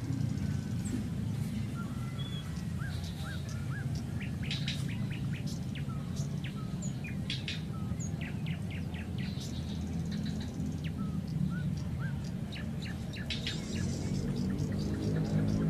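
Several small birds chirping and calling, with quick high chirps and short rising whistled notes. A steady low hum runs underneath.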